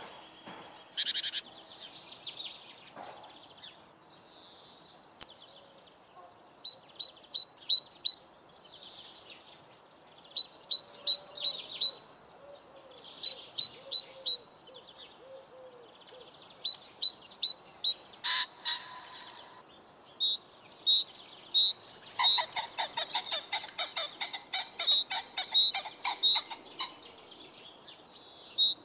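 Birds chirping and singing: short bursts of quick, high repeated notes every second or two, with a denser, faster trill about two-thirds of the way through.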